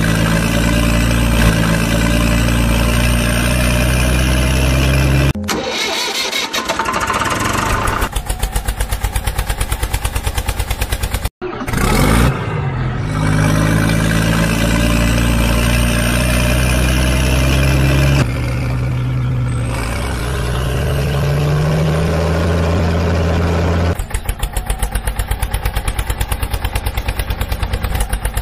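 Dubbed-in heavy diesel engine sound effects: truck engines running and rising and falling in pitch, spliced together with abrupt cuts, ending from about four seconds before the end in a fast, even tractor-style chugging.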